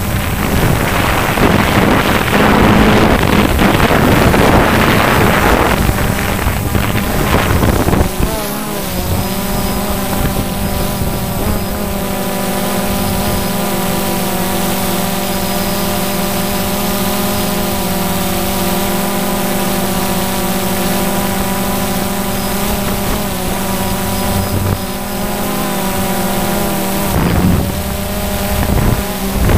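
Multirotor camera drone's motors and propellers humming, picked up by the camera it carries. For the first several seconds wind rushing over the microphone covers the hum; after that the hum is a steady, even whine, wobbling briefly in pitch at the change.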